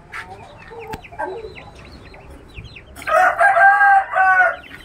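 A rooster crows once, about three seconds in, a loud held call lasting about a second and a half, over the soft, repeated peeping of young chicks.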